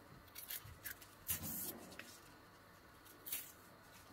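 Small kitchen knife peeling strips of skin off a fresh artichoke stalk: a handful of faint, short scraping strokes, the longest about a second and a half in.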